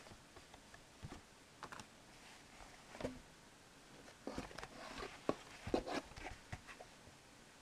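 Handling noise from a cardboard eyeglasses box: plastic sleeves and paper rustling with scattered light taps and knocks, busiest in the second half.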